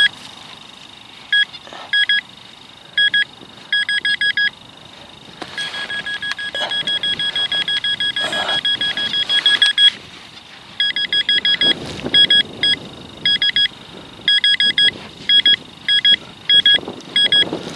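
Handheld metal-detecting pinpointer beeping in short bursts of rapid pulses as it is pushed through the dug soil, running into an almost unbroken tone for about four seconds in the middle while it sits over metal. Soft scraping of hands and earth between the beeps.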